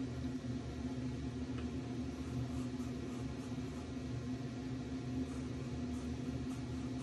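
Steady mechanical hum with one constant tone over a low rumble, like an appliance or fan motor running. Faint short scratches of a felt-tip marker drawing on paper come through now and then.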